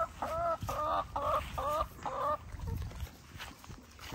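Hens clucking: a fast run of short, wavering calls, about three a second, that stops a little past halfway, leaving it quieter.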